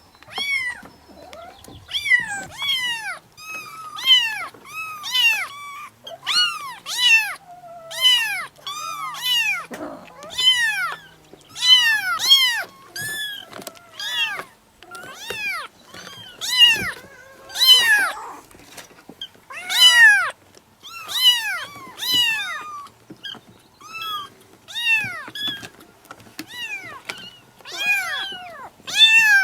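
Kittens meowing: a steady string of short, high-pitched meows, one or two every second, each rising and then falling in pitch.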